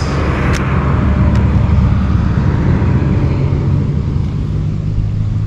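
Wind buffeting the action camera's microphone: a loud, steady low rumble with a hiss that fades over the first few seconds.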